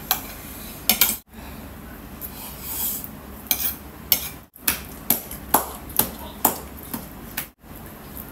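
Metal forks and spoons clinking and scraping against ceramic plates while noodles are eaten: a string of sharp clinks, about two a second in the second half.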